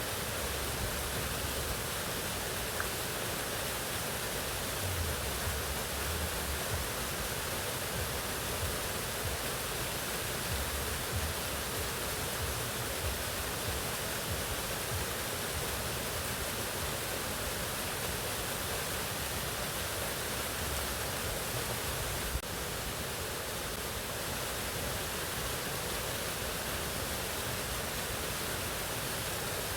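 Waterfall: a steady, unbroken rush of falling water. A single brief click comes about three-quarters of the way through.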